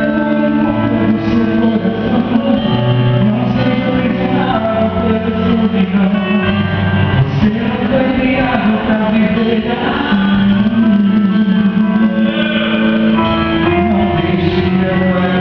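Worship music: a band playing with voices singing.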